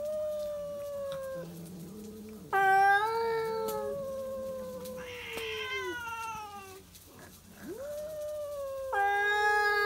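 Two cats yowling at each other in long, drawn-out calls that overlap, one voice higher than the other: territorial caterwauling in a face-to-face standoff. The loudest calls break in about two and a half seconds in and again near the end.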